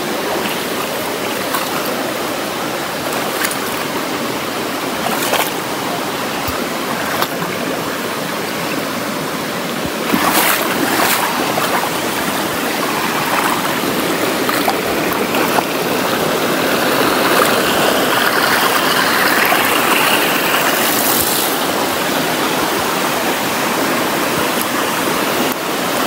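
Shallow rocky stream rushing steadily over stones, a little louder about ten seconds in, with a few brief sharp sounds scattered through.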